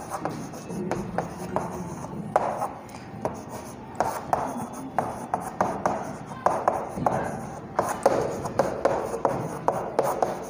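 Chalk writing on a chalkboard: a run of short, irregular taps and scratchy strokes as the letters are formed.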